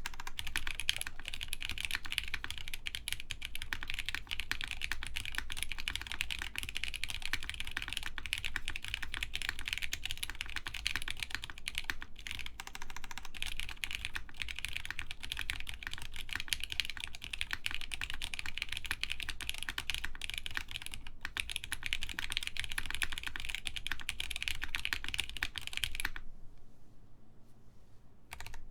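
Fast, continuous typing on an Axiom Studios Typ60 mechanical keyboard with OP Black switches lubed with 205g0, 65 g springs, a carbon fiber half plate and O-rings. The keystrokes come in a dense, steady stream, stop briefly near the end, then start again.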